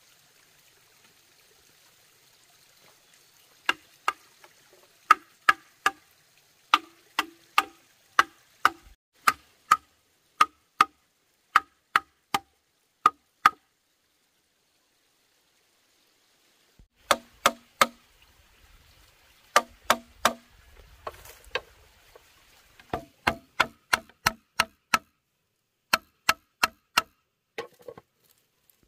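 A tool striking wood again and again with sharp knocks, in quick runs of two or three, roughly two a second. Each knock has a short ringing tone. The strikes pause for about three seconds in the middle, then resume.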